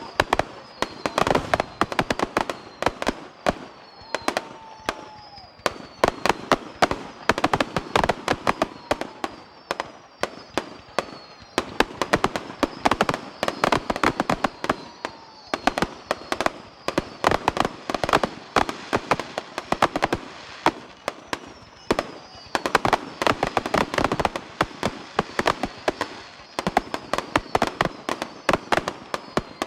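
Fireworks display going off in a dense, continuous barrage of bangs, many a second, with short falling whistles now and then.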